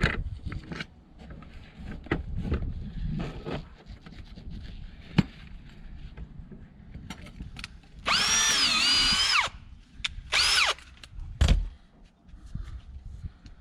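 Power drill spinning a hole saw in two runs: one of about a second and a half whose pitch dips as it takes load, then a short burst. Before the runs there are scattered knocks and clicks of handling.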